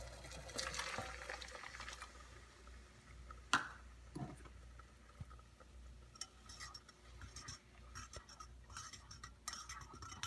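Milk being poured into a saucepan, a sharp knock about three and a half seconds in, then a wire whisk stirring the thickening milk sauce in the metal pan, its wires clicking and scraping against the sides in quick strokes.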